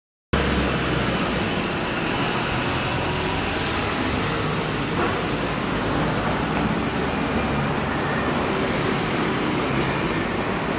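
Volvo B5LH hybrid double-decker bus pulling away, its engine running steadily amid road traffic noise. The sound starts abruptly just after the beginning.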